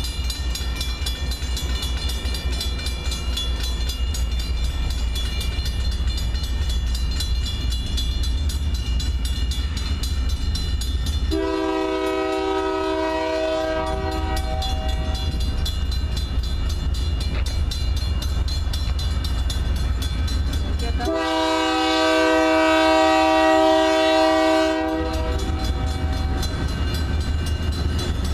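Union Pacific freight locomotive's multi-note air horn sounding two long blasts for a grade crossing; the second, about halfway through, is longer and louder. Between and under them a crossing signal bell rings rapidly and steadily over a low rumble.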